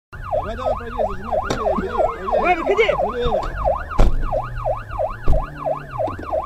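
Police car siren on a fast yelp, rising and falling about three times a second, heard from inside the car, with a lower wavering tone under it for the first three seconds. Two sharp knocks come about four and five seconds in.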